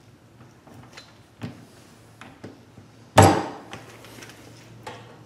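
Light clicks and knocks of metal transmission parts and hand tools being handled, with one sudden loud metallic clunk a little after three seconds in.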